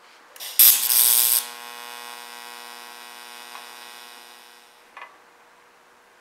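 TIG welding arc on stainless steel tube: a loud harsh burst as the arc strikes, then a steady buzzing hum for about three and a half seconds that fades a little and stops about a second before the end, with a small click.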